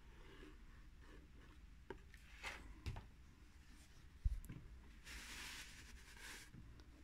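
Quiet handling of denim fabric on a cardboard box: a few light clicks and knocks, a dull thump about four seconds in, then hands rubbing and smoothing the denim flat for about a second and a half.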